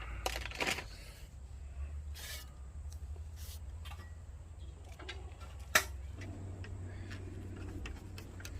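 A few scattered clicks and scrapes of hard objects being handled, with one sharp click about six seconds in, over a steady low hum.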